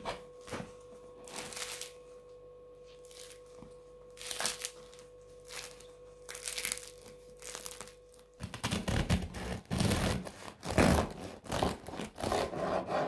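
Crisp bread crust crackling as a crusty no-knead loaf is handled, then a serrated bread knife sawing through the crust with louder, rapid crunching from about eight seconds in.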